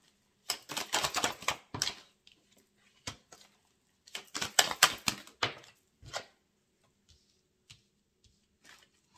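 Oracle cards being shuffled by hand: two runs of quick, crisp card clicks, the first about half a second in and the second around four seconds in, with a few stray clicks between.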